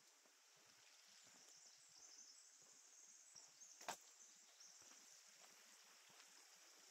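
Near silence: a faint, steady high hiss of quiet forest ambience, with one sharp click about four seconds in.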